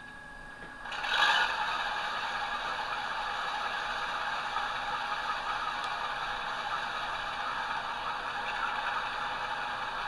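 Simulated Class 52 diesel engine sound from a Loksound 5 sound decoder, played through a small speaker inside the model locomotive, just after start-up. It steps up sharply about a second in, then runs steadily with a thin, bass-less tone.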